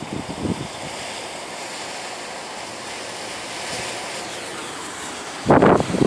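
Strong wind blowing, a steady hiss. About five and a half seconds in, loud gusts hit the microphone with heavy, uneven low buffeting.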